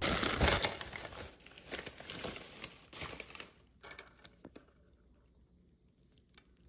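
Plastic shopping bag rustling and crinkling as metal ring drawer pulls are handled, then a few light clinks of the pulls against each other and the stone countertop about four seconds in.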